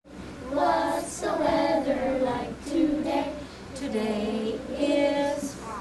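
A class of second graders singing a song together, their voices holding one note after another.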